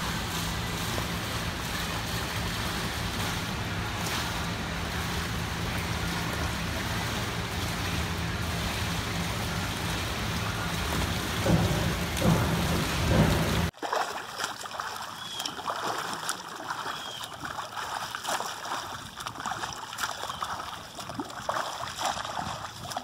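A swimmer's strokes splashing in a pool, at first over a steady low hum and water noise, with a few louder splashes just before a sudden change about two-thirds of the way through. After that the splashing strokes stand out as short, irregular splashes against a quieter background.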